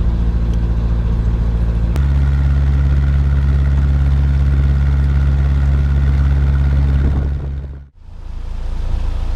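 Narrowboat's diesel engine running steadily under way. Its note changes abruptly about two seconds in, and it fades out briefly near the end before coming back.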